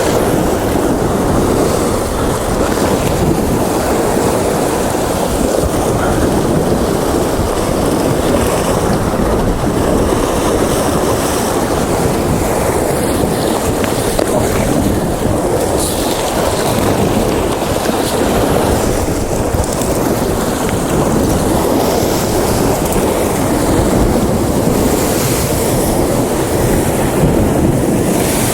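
Sea swell surging and washing against shore rocks, a steady loud rush, with wind buffeting the microphone.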